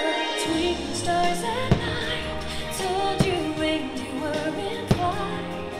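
Festive holiday show music with a singer, with three sharp firework bangs about a second and a half apart.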